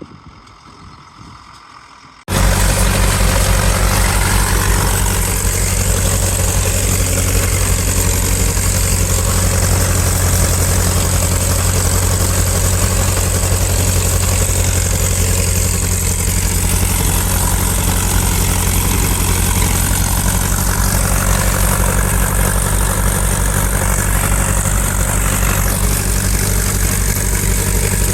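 Tractor engine running steadily at a constant speed, loud and even. It cuts in abruptly about two seconds in, after a quieter moment.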